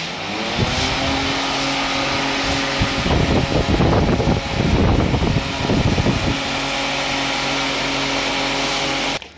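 High-speed electric pedestal fan running, a steady motor hum under a rush of air, its pitch rising in the first moment as it comes up to speed. From about three to six seconds in, its blast buffets the microphone in loud gusts.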